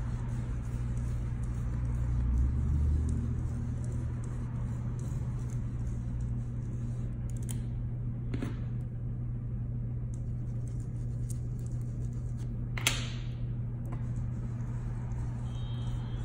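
Ink blending tool scrubbing ink through a stencil onto paper: a soft, steady rubbing over a constant low hum, with two short taps in the second half.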